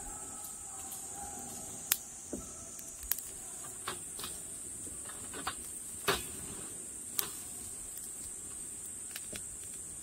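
Metal tongs clicking and tapping against a wire grill grate and steaks as the meat is turned over charcoal: about six sharp clicks spread across the stretch. Behind them runs a steady high-pitched insect chorus.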